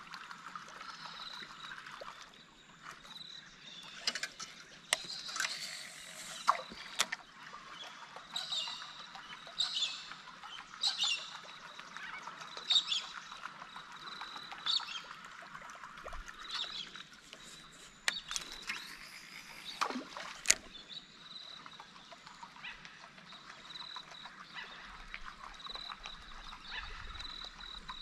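Outdoor bush ambience: birds calling in short repeated chirps over a steady high-pitched hum, with a few sharp clicks.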